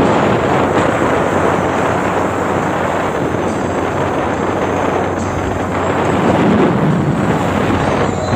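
Outboard motor on a speedboat running steadily at high speed, with wind buffeting the microphone.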